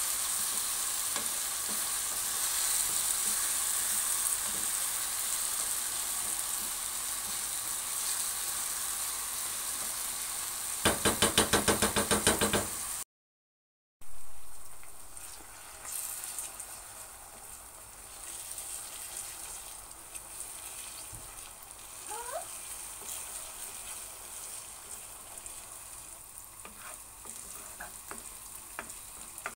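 Diced onions and tomatoes frying in oil in a nonstick pan, a steady sizzle as they are stirred with a wooden spatula. About eleven seconds in comes a quick run of loud taps lasting about two seconds. After a second's break, a quieter sizzle as four eggs cook in the mixture.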